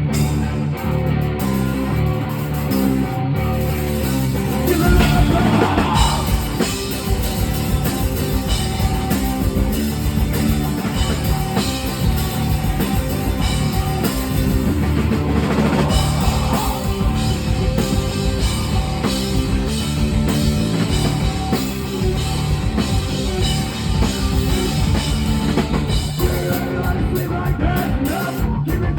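Rock music with guitar, joined by a drum kit about five seconds in.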